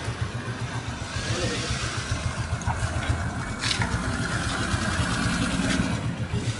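A vehicle engine running at idle, a steady low throb, with a brief sharp click about three and a half seconds in.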